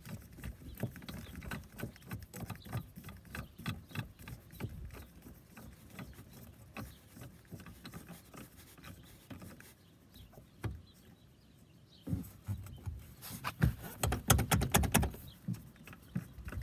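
Bottle jack's screw dial being cranked by hand under a truck seat, a run of small quick clicks and scrapes as the jack is extended to wedge it tight in its storage bracket. It goes quieter for a couple of seconds, then louder knocks and rattles come near the end.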